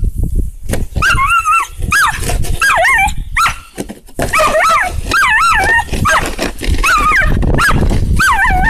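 Rough collie barking and whining in high, wavering yelps that come in quick runs, while a plastic snow shovel scrapes and pushes through snow underneath.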